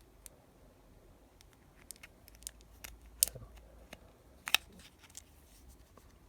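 Small flat-blade screwdriver prying and working around the seam of a Toyota key fob's plastic case: faint scrapes and light ticks, with two sharp clicks about a second and a half apart near the middle.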